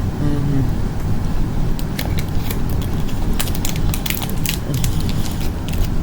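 Crinkling and crackling of plastic food packaging being handled, in irregular sharp clicks that grow denser after about two seconds, over a steady low rumble.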